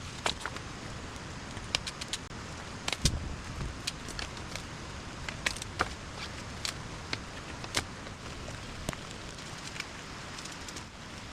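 Steady hiss of heavy rain, with irregular sharp clicks and snaps scattered throughout.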